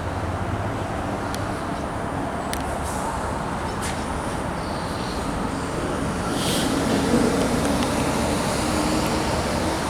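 Steady road traffic noise. A vehicle engine's hum grows a little louder about two-thirds of the way through.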